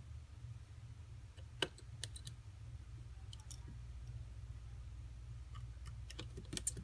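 Scattered small, sharp clicks of a screwdriver and tiny screws against the iPhone 6's metal connector shield plate as the plate is screwed down, over a steady low hum.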